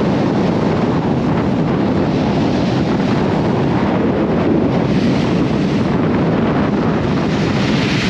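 Strong wind blowing across the microphone as a loud, steady rush, with surf on the shingle beach under it.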